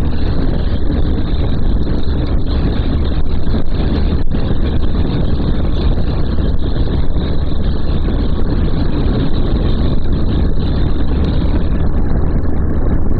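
Motorcycle under way, heard from a rider-mounted microphone: steady engine and wind noise with a strong low rumble and no letup.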